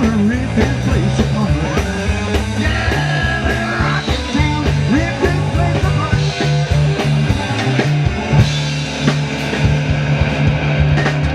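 Live rock band playing electric guitar over a bass line and a steady drum beat, with the guitar bending notes.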